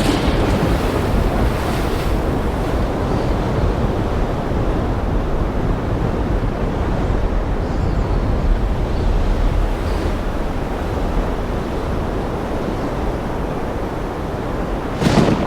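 Ocean surf and wind ambience: a steady rushing wash of waves.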